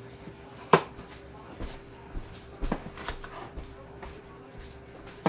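Knife chopping bell pepper on a plastic cutting board: a handful of sharp, irregularly spaced knocks of the blade on the board, the loudest about a second in. A faint steady hum sits underneath.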